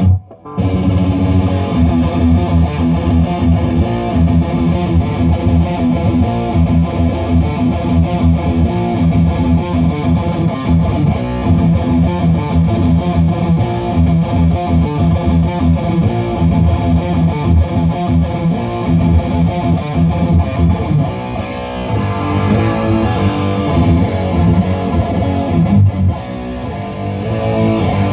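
Distorted electric guitar, a PRS, played continuously. It breaks off for a split second right at the start.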